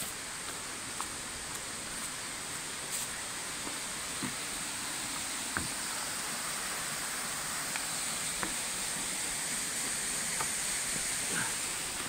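Steady rushing hiss of a waterfall, growing slightly louder, with scattered light clicks and knocks of footsteps on rocks and dry leaf litter.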